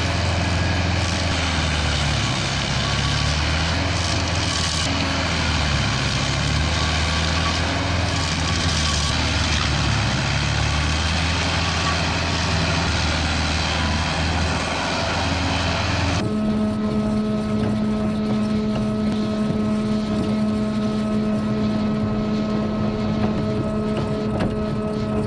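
Heavy machinery running with a low engine drone that rises and falls in pitch, then, after a cut about 16 seconds in, a different machine running with a steady humming tone.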